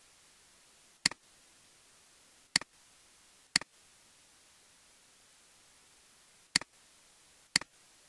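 Five sharp computer-mouse clicks, each a quick double tick of button press and release, coming irregularly with two pairs about a second apart, over a faint steady hiss.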